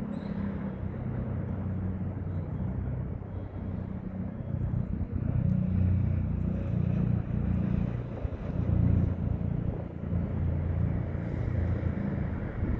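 Steady low rumble of road traffic, swelling and easing as vehicles pass.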